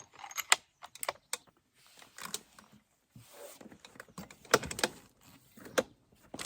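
Irregular sharp clicks and clacks of a bolt-action rifle being handled at the shooting bench, with a quiet gap about three seconds in. The loudest clacks come about half a second, four and a half and six seconds in.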